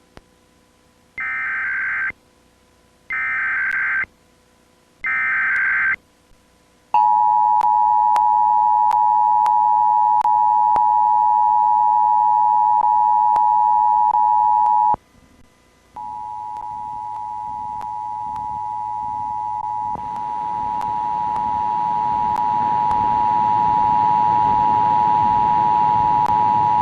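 Emergency Alert System test signals: three short bursts of screeching digital header tones, then the EAS two-tone attention signal held steady for about eight seconds. After a one-second break the attention tone comes back for about eleven seconds, with a hiss growing beneath it.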